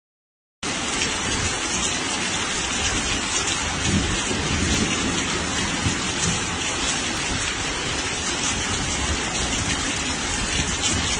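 Heavy storm rain pouring down: a steady, dense hiss with a low rumble underneath. It cuts in suddenly less than a second in.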